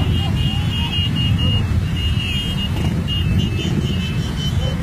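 Many motorcycle engines running together, a steady low rumble, with a high steady tone that comes and goes.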